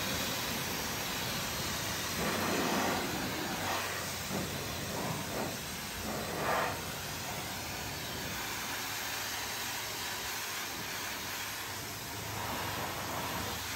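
Pressure washer jet spraying a car wheel and tyre, rinsing off soap foam: a steady hissing spray that swells briefly a few times.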